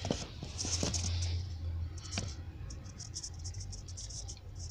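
A few sharp light clicks, then a run of quick faint ticks about a second later, over a low steady hum.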